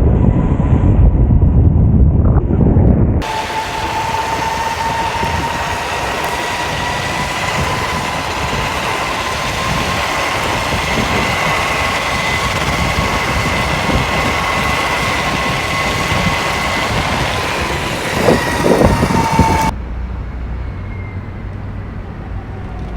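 Electric skateboard riding at speed: a steady electric motor whine that rises and falls slightly over a rolling hiss from the wheels. Wind buffets the microphone for a few seconds before and after.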